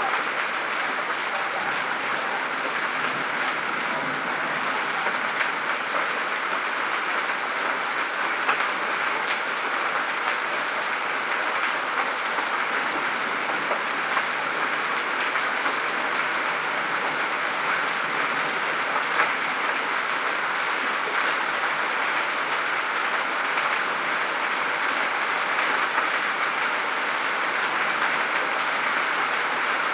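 Hail and rain pelting down on hard surfaces, a steady dense clatter of many small impacts that holds at the same strength throughout.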